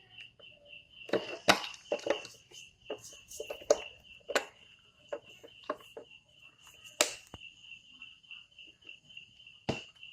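Scattered sharp clicks and knocks from handling and working on a motorcycle headlamp, a cluster in the first five seconds and a loud one about seven seconds in. Behind them a cricket chirps steadily, about five pulses a second.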